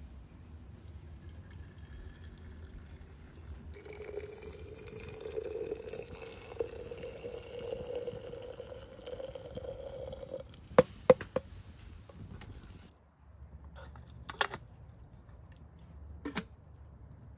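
Water poured from one metal pot into the open top of a blackened metal kettle, a steady stream that rises in pitch as the kettle fills. Then several sharp metal clinks as the pots are handled and a teapot is set on top of the kettle.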